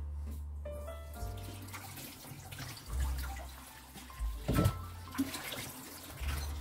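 Background music with a pulsing bass line over a pot of borscht simmering on the stove, its liquid bubbling with a soft hiss. A brief knock about four and a half seconds in.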